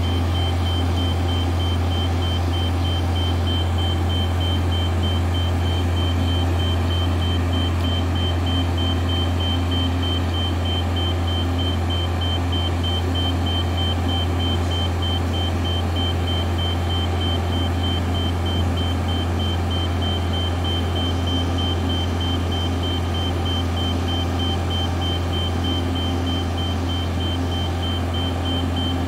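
Self-propelled modular transporter under the yacht, its power pack running with a steady low hum, while a high-pitched warning beeper pulses rapidly and without a break.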